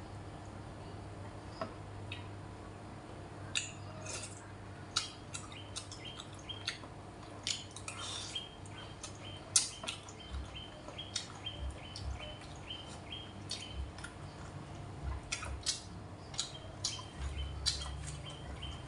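Chopsticks and a spoon clicking and scraping against a ceramic rice bowl while eating, in many short, irregular clicks.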